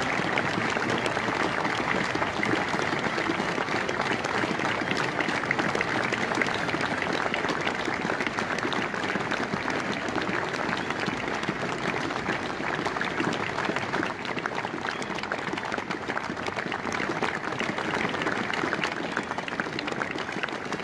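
A crowd applauding, sustained clapping that keeps up at an even level.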